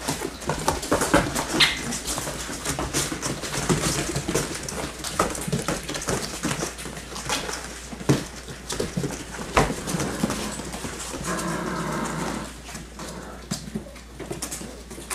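Six-week-old Labrador Retriever puppies playing on a hard floor: paws scuffling and many scattered clicks and knocks. About eleven seconds in, one puppy gives a drawn-out vocal sound lasting about a second and a half.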